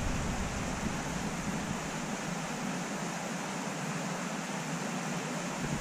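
Steady rush of a shallow river running over stones, with a little wind rumble on the microphone in the first couple of seconds.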